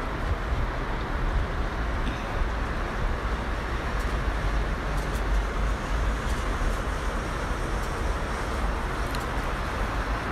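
Distant road traffic heard from high up: a steady wash of passing cars, with a low, gusty rumble of wind on the microphone.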